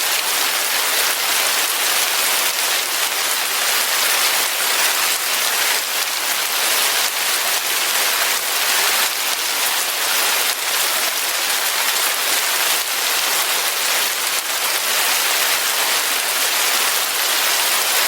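Steady rain falling: an even hiss of many drops striking a surface, unchanging throughout.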